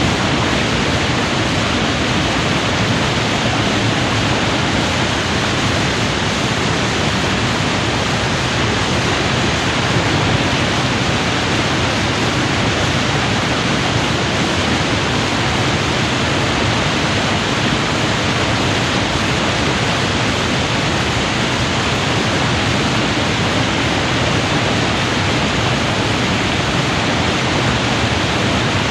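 River water in full flood pouring over a weir: a steady, dense rush with no breaks or changes.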